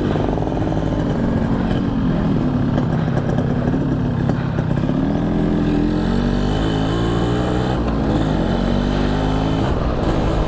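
Yamaha RX-King's 135 cc single-cylinder two-stroke engine running under way, its pitch rising and falling several times as the throttle is opened and eased. The rider says the gearbox bearing has failed.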